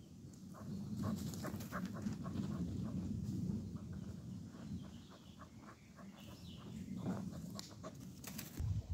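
A dog panting as it runs past close by, with short crunching steps on gravel.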